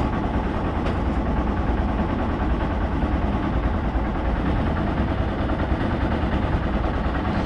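Steady rush of a river flowing past a concrete wall, heard as an even low rumble with no breaks.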